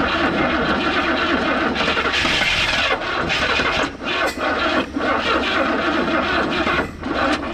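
1971 Buick GS V8 cranking and sputtering as it tries to start, after sitting almost 40 years; it falters several times and drops off at the end without settling into an idle.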